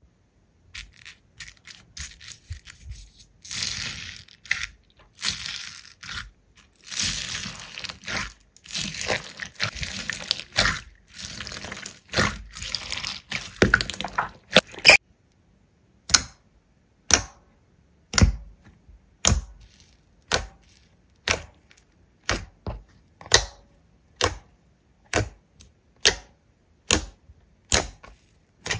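Slime being squeezed and worked by hand, with dense crackling and popping for about the first half. Then comes a regular series of sharp chopping taps, about one a second.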